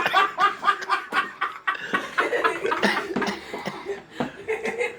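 People laughing: a quick run of short ha-ha pulses, then looser scattered laughter.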